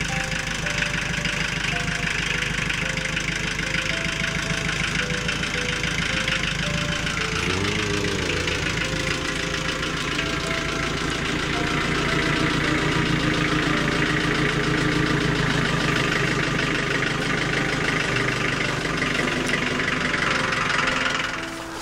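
A combustion engine idling steadily, its low pulsing running on evenly and growing louder and fuller about halfway through.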